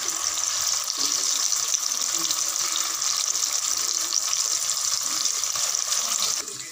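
Hot oil sizzling steadily in a steel pot as a spoonful of onion-tomato paste fries with cumin seeds and bay leaves; the sizzle cuts off abruptly near the end.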